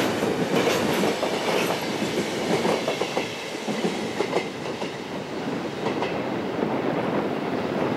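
Trains passing close by: the last freight wagons and then passenger coaches rolling along, wheels clicking over the rail joints. The sound eases a little after about five seconds as the trains draw away.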